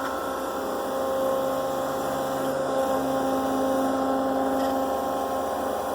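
K.O. Leematic surface grinder running under power, a steady machine hum made of several constant tones.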